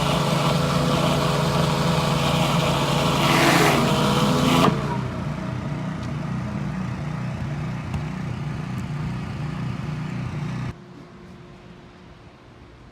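Pressure washer engine running steadily, with the loud hiss of high-pressure water spraying through the surface cleaner. The spray stops abruptly about four and a half seconds in while the engine keeps running, and then the sound cuts off near the end.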